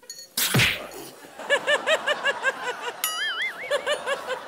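Cartoon-style comedy sound effects over a staged fight: a sudden whoosh about half a second in, then a quick run of bouncy blips that rise and fall in pitch, about five a second, with a wavering whistle-like tone mixed in about three seconds in.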